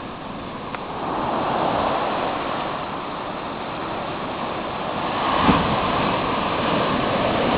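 Ocean surf breaking and washing up a sandy beach, a steady rush that swells about a second in and again near the end, with one short thump about five and a half seconds in.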